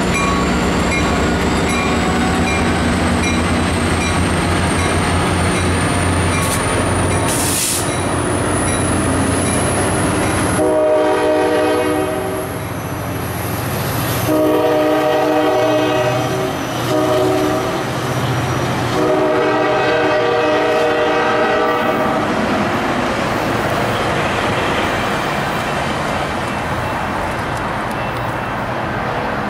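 EMD F40PH diesel locomotive pulling a Coaster commuter train away from the station, its 16-cylinder engine running hard under load as it accelerates past, with a thin high whine rising in pitch. From about 11 seconds in it sounds its horn in a series of long blasts while the bilevel passenger cars roll by. The train noise then fades to a rumble as it pulls away.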